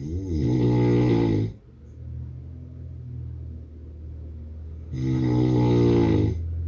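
A man snoring: two loud snores, each about a second and a half long and about five seconds apart, with a quieter low drone between them.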